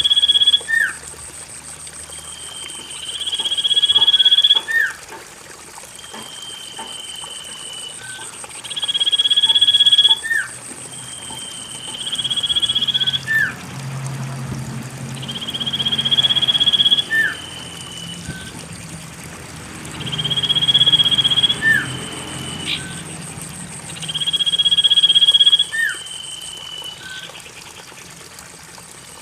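Common iora (cipoh) calling: a long steady whistle that swells in loudness and ends in a short lower note flicking sharply upward, repeated about seven times, one call every four seconds or so. A lure recording meant to coax a silent cage bird into singing.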